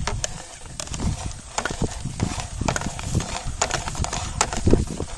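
Hand-cranked homemade reel turning as electric fence polywire winds onto it: a run of irregular clicks and knocks over a low handling rumble.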